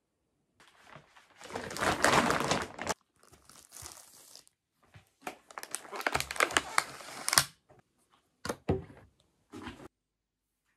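Wrapping material being crinkled and torn by hand in several separate bouts with short silences between them, the loudest about two seconds in, with a few sharp crackles around six to seven seconds in.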